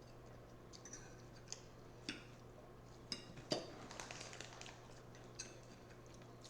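Cutlery lightly clinking against a salad plate or bowl while eating: scattered short clicks, a few with a brief metallic ring, the loudest about three and a half seconds in, over a low steady hum.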